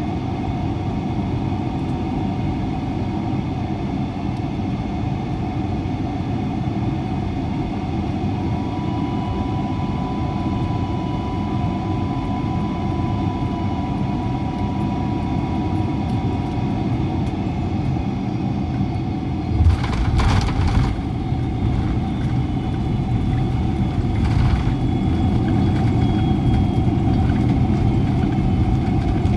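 Boeing 747-400 cabin sound: the Rolls-Royce RB211 jet engines give a steady hum with a whine on top. About two-thirds of the way in there is a jolt, and another a few seconds later; the rumble is a little louder after the first.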